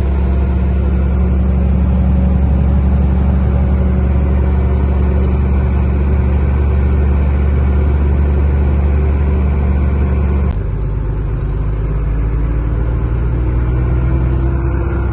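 Truck engine heard from inside the cab, running steadily while driving. About ten seconds in, the low drone drops suddenly and a faint rising tone follows.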